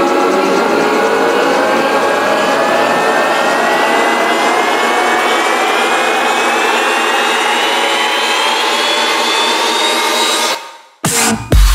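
Electronic dance music build-up: a long rising synth sweep over a thinned-out track with no bass. It cuts to a sudden near-silent break about ten and a half seconds in, then a brief stutter before the bass-heavy drop with kick drums hits at the very end.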